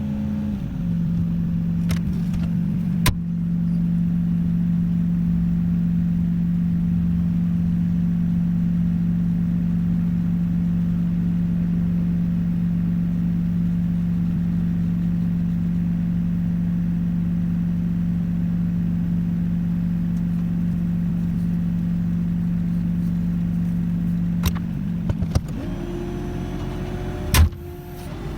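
Tractor engine running at steady revs. Its note drops slightly about a second in, holds level, and changes again near the end, with a sharp click just before it.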